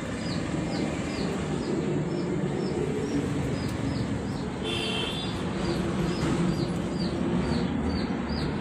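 A bird repeating a short falling chirp, evenly about two to three times a second, over a steady low background hum. A brief higher call breaks in about five seconds in.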